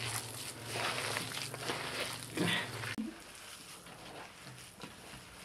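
Hands squeezing and tossing chopped greens and boiled potatoes in a metal basin: wet rustling and squishing, which drops off abruptly about three seconds in to a few faint rustles.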